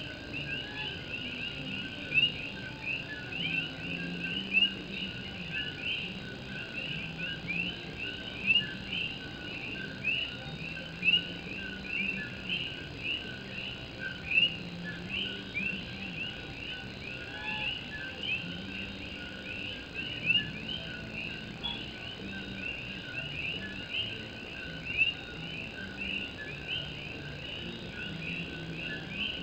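A chorus of Puerto Rican coquí frogs: many overlapping two-note high whistled "co-kee" calls, repeated rapidly and without a break, with single calls standing out louder every few seconds.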